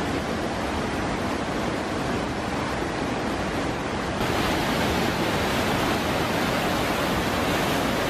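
Mountain stream rushing and cascading over boulders: a steady wash of water noise. About four seconds in it gets slightly louder and brighter.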